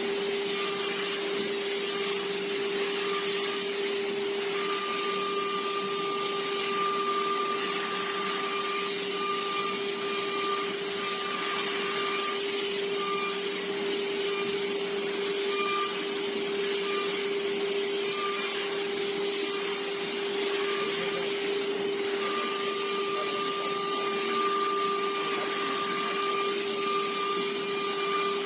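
Small CNC machine running: a steady motor whine over a hiss, with a higher tone that breaks in and out.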